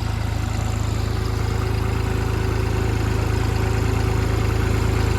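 An engine running steadily at low revs with a fast, even low throb, growing a little louder toward the end.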